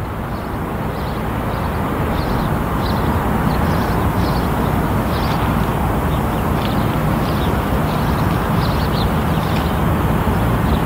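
GE ES44C4 diesel locomotive approaching, its V12 engine running with a deep, steady drone that grows louder over the first few seconds and then holds. Short, high chirps sound several times a second over it.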